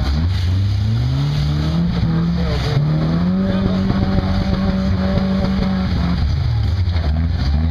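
Lifted off-road pickup's engine revving under load on a rocky climb. The revs rise over the first couple of seconds, hold high for a few seconds, then drop back about six seconds in.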